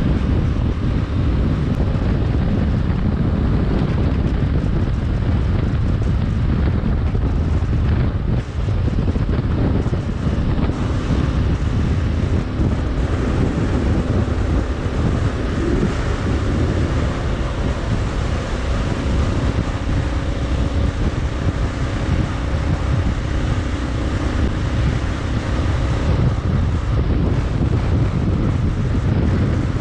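Heavy wind rush and buffeting on the camera microphone of a Kawasaki KLR 650 at road speed, with the bike's single-cylinder engine running steadily underneath.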